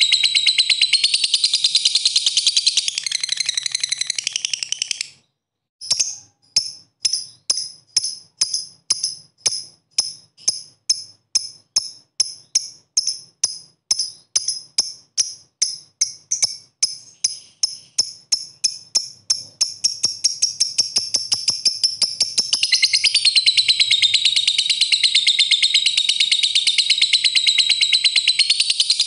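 Fischer's lovebird giving its long 'ngekek' chatter, a rapid, continuous, high-pitched trill. It breaks off about five seconds in, then starts again as separate sharp chirps, about three a second, that speed up and run together into one long unbroken trill near the end.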